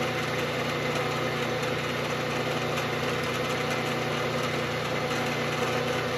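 Milling machine spindle running steadily while a small drill bit feeds into the workpiece, a constant motor hum with no change in pitch. The bit is dull and is not cutting well.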